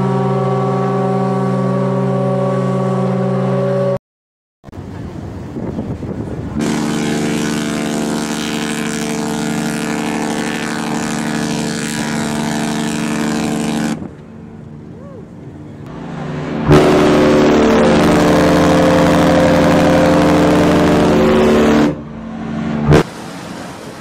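A ship's whistle, presented as the RMS Titanic's, sounds a long steady chord that cuts off about four seconds in. After a short break the cruise ship Freedom of the Seas sounds its horn in two long blasts, about seven and five seconds long, with outdoor noise between them. A sharp knock comes near the end.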